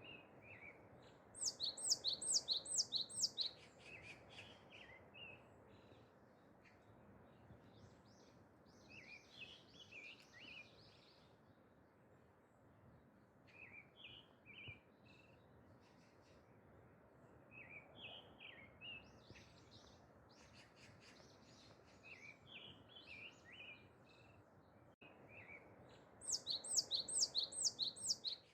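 Songbirds singing in a forest. A loud run of quick, high, down-sweeping notes lasts about two seconds shortly after the start and again near the end, with softer scattered chirps between, over a faint steady background hiss.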